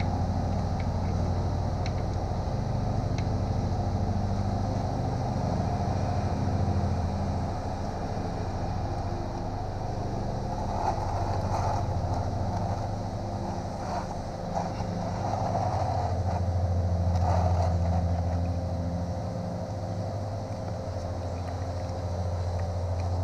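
A steady low mechanical rumble that swells louder about two-thirds of the way through. Over it come a few faint metallic clicks and clinks as an oil drain plug is threaded back into a motorcycle engine by hand.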